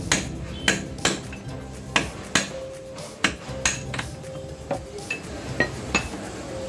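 Hammer tapping at a ball bearing in an Aprilia SR 150 scooter's transmission casing: a dozen or so sharp metallic strikes at uneven intervals, some ringing briefly.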